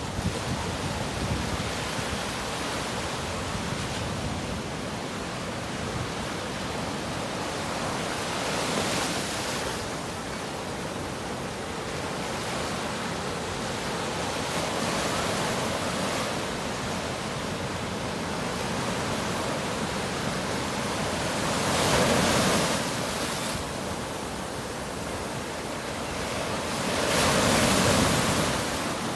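Ocean surf on a beach: a steady wash of waves, with a louder breaker swelling and fading about nine seconds in and two more near the end.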